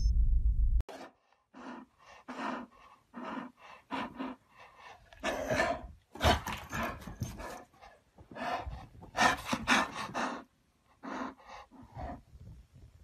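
The intro music cuts off under a second in. A bull terrier then pants and huffs right at the microphone in short, irregular breaths with pauses between them.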